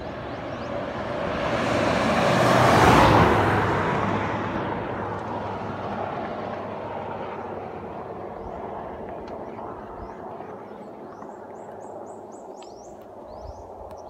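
A road vehicle passes by on the highway, getting louder to a peak about three seconds in and then fading away slowly. Birds chirp near the end.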